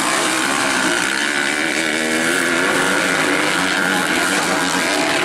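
Motocross bike engines revving up and down as the bikes race over a dirt track, their pitch rising and falling with the throttle.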